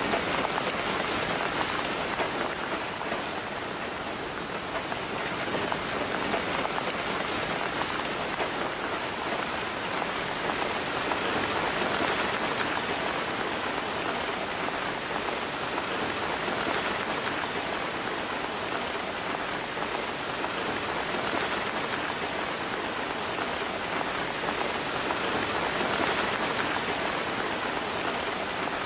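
Steady rain falling, a dense even patter of drops on a surface.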